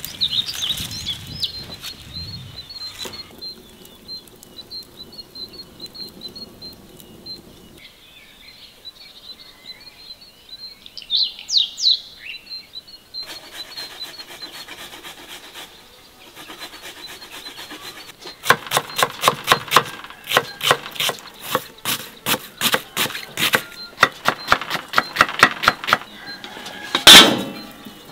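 Birds chirping outdoors, with a faint high, steady trill in the first half. Later there is a run of quick, even knocks, about four a second, for several seconds, and a single louder knock near the end.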